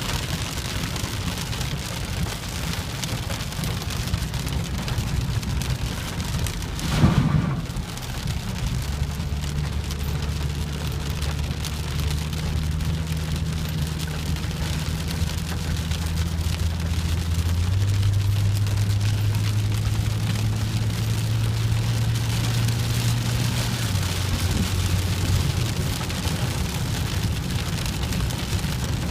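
Heavy rain falling steadily. About seven seconds in there is a brief louder whoosh, and a low steady hum runs through the middle.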